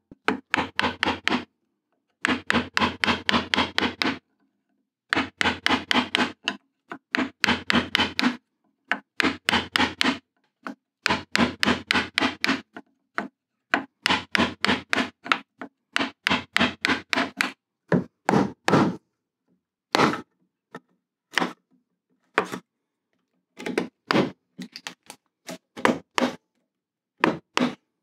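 Wood chisel being struck again and again to chop out a slot in an old workbench top, in quick runs of sharp knocks, about five a second, with short pauses between runs. The runs get shorter and more scattered in the second half.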